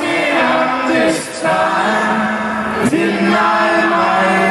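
A live band singing in several-part harmony with little or no instrumental backing, on long held notes.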